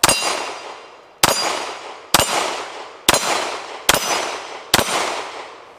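A Sig P229 pistol in .40 Smith & Wesson fired six times, a little under a second apart, at steel plate targets. Each shot is followed by a ringing tail that fades, with the plates clanging as they are hit.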